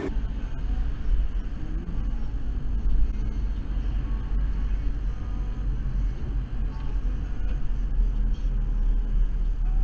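Steady low rumble of a car's engine and tyres on a wet, slushy road, heard from inside the cabin through a dashcam.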